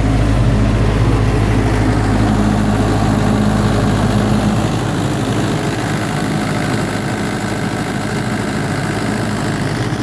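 Yanmar 4TNE84 diesel engine of a 25 kVA generator set running steadily, a continuous low, even drone. The sound drops a little about halfway through.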